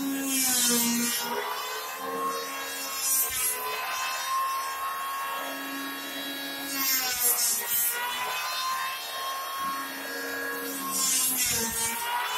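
Electric hand planer running steadily and cutting wood in four passes, about every three to four seconds. Each cut brings a burst of hissing shaving noise while the motor's pitch dips under the load.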